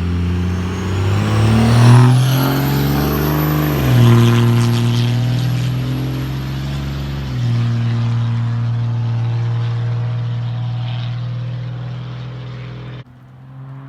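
24-valve Cummins diesel in a 1999 Dodge Ram 2500 with a 4-inch straight-pipe exhaust pulling hard, heard from inside the cab: a deep exhaust drone with its pitch climbing and a rising turbo whistle. The engine note steps at about four and seven seconds in, and the sound drops off sharply near the end.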